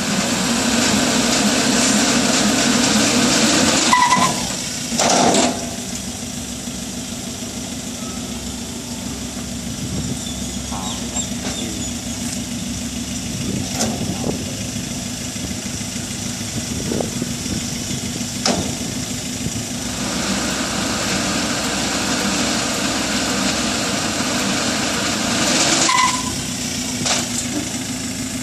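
Ford Ranger pickup's engine running while its wheels sit on a steel roller ramp, loudest for the first few seconds and again for several seconds near the end. There is a short high beep about four seconds in and again near the end, and a few clanks.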